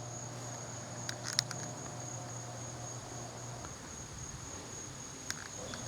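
Garage door opener heard from a distance, its motor humming as the door closes and stopping about three and a half seconds in when the door reaches the bottom. A steady high insect trill and a few light clicks run alongside.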